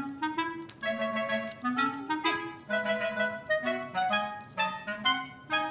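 Background music: a light, bouncy melody played on clarinet-like woodwind notes, several short notes a second hopping up and down in pitch.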